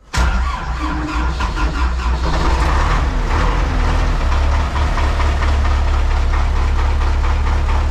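Tractor diesel engine, a Belarus MTZ-82, starting abruptly and then running steadily, heard from inside the cab. It is started to pump up the air-brake system.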